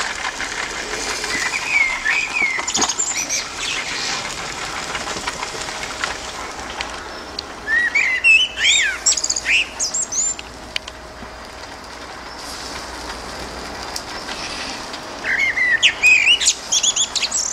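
A songbird singing in three separate bursts of whistled phrases, each running up into higher twittering notes, a few seconds apart.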